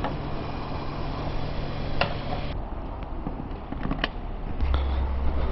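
Suzuki Hayabusa's inline-four engine idling with a steady low hum that cuts off a little over two seconds in. A couple of sharp clicks follow, then a low rumble near the end.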